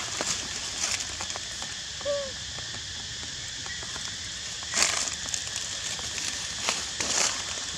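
Dry leaf litter crackling and rustling underfoot in short bursts, the loudest about five seconds in, over a steady outdoor hiss. A short faint chirp sounds about two seconds in.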